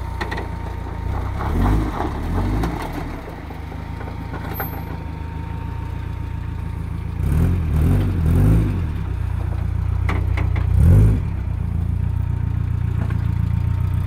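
1996 Suzuki X-90's 1.6-litre four-cylinder engine running at low revs while the 4x4 crawls through off-road ruts, revving up in short bursts three times.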